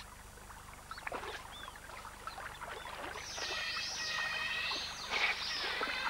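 Giant otters calling: a run of high squeals that rise and fall, starting about three seconds in and growing louder, over faint splashing of water.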